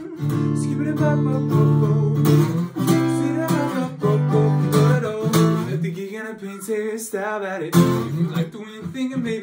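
Acoustic guitar strummed in a rhythmic pattern, with a man's voice singing along. The low bass notes drop away for a moment around six seconds in, then come back.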